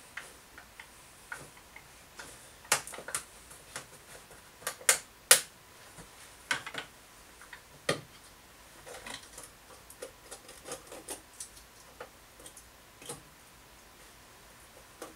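Irregular light clicks, taps and knocks of plastic motor-oil bottles and caps being handled, with a few louder sharp knocks around the middle.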